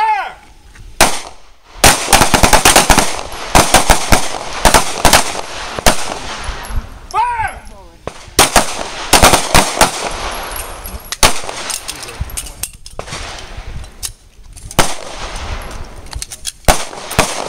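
Several handguns firing at once along a firing line: a rapid, irregular string of sharp pistol shots, often overlapping, with a few short pauses between volleys.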